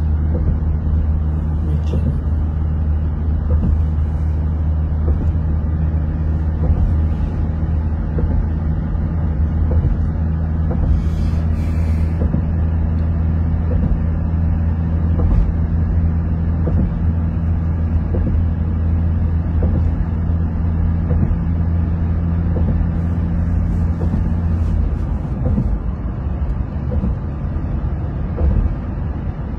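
Steady low drone of a vehicle driving along a highway, engine and road noise. Its steady hum drops away about twenty-five seconds in, and there is a brief hiss near the middle.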